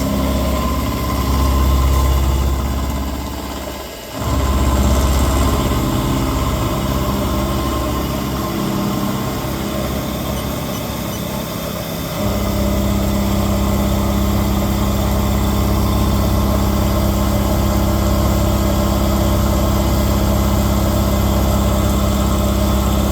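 Lathe running during a milling cut, a steady mechanical hum with machining noise. It dips briefly about four seconds in and settles into a steadier, more even hum from about twelve seconds in.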